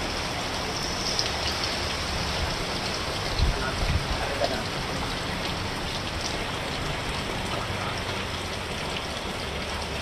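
Steady rain falling and pattering on the ground around a shelter, with a couple of brief low thumps about three and a half seconds in.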